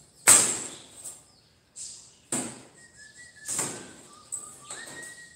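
Thin sheet-steel offcuts (20- and 18-gauge) being picked up and laid down on a workbench: about five sharp metallic clatters, the loudest near the start.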